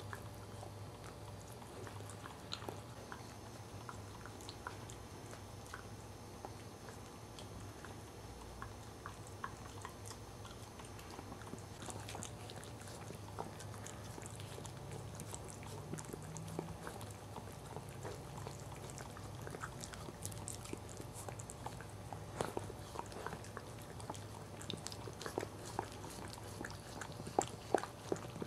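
Cairn Terrier mother licking and chewing at her newborn puppy's birth sac: scattered wet clicks and smacks, busier and louder in the last few seconds, over a steady low hum.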